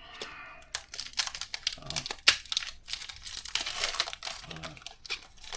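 Foil Pokémon booster pack wrapper crinkling and tearing as it is ripped open and handled, a dense run of sharp crackles.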